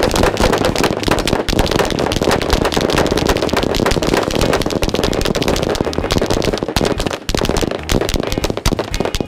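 Massed gunfire: many guns fired at once by a line of shooters, handguns among them, in a dense, continuous barrage of overlapping shots that thins a little after about seven seconds.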